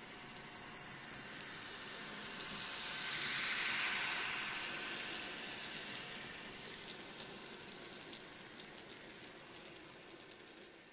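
N-gauge model train running past: the locomotive's motor whirring and small wheels rolling on the rails, swelling to its loudest about three to four seconds in and then fading as the freight wagons roll by. Light clicking of the wagon wheels over the track in the later seconds.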